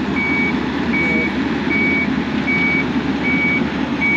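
Skid steer's backup alarm beeping as it reverses: one high steady tone repeating evenly about every three-quarters of a second, over the rumble of the machine running with its vibratory roller attachment.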